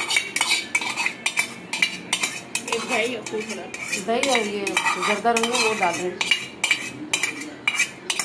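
A metal spoon scraping and tapping a small steel bowl against an aluminium cooking pot, in quick repeated clinks about three a second.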